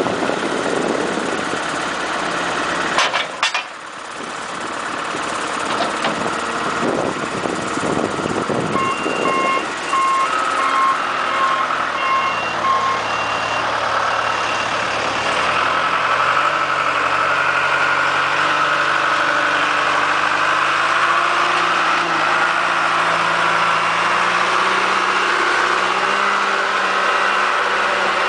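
Backhoe loader's diesel engine running, with a sharp clank about three seconds in. Its backup alarm beeps steadily, about twice a second, for around four seconds from about nine seconds in.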